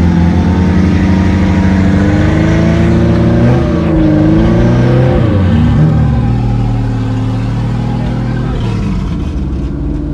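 Off-road 4x4's engine revving hard under load while the vehicle churns through deep mud, its pitch swinging up and down in the middle, then running lower and a little quieter near the end.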